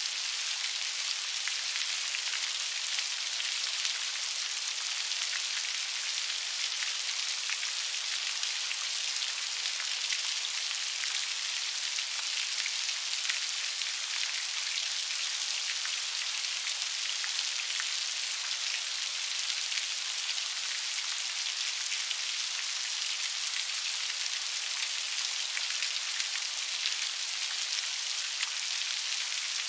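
Steady rain, a dense, even hiss of raindrops with many fine pattering ticks, high in pitch with almost no low rumble.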